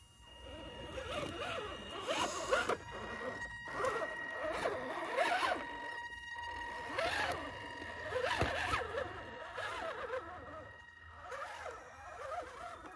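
Electric motor and gear drivetrain of a scale RC crawler pickup whirring in bursts that rise and fall with the throttle as it crawls over logs and rocks, with a single knock about eight seconds in.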